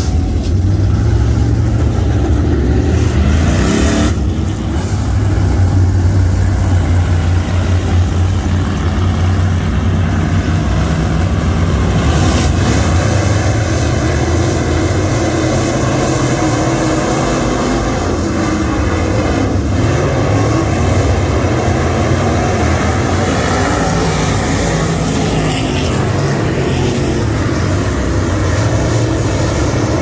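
Dirt late model race car engines running with a loud, steady drone.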